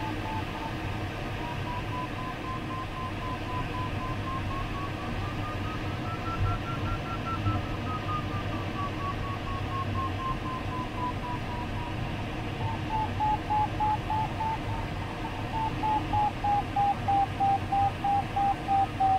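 Glider's audio variometer sounding a single electronic tone that rises in pitch to a peak about seven seconds in, then falls back. Over the last several seconds it breaks into beeps at about two a second. The pitch and beeping follow the glider's rate of climb or sink. A steady rush of airflow in the cockpit lies underneath.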